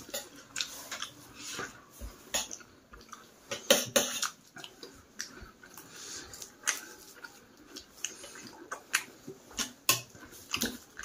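Someone eating rice and curry by hand: irregular wet clicks and smacks of chewing, with fingers mixing food on a metal plate.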